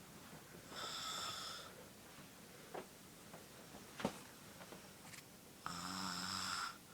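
A sleeping person snoring: two snores about five seconds apart, each lasting about a second. A brief sharp click sounds between them, about four seconds in.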